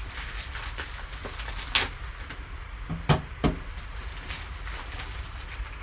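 Hard plastic PSA graded-card slab being handled and set down on a tabletop: a click near two seconds in, then two knocks close together about a second later, the second of these the loudest. Light rustling and a low steady hum run underneath.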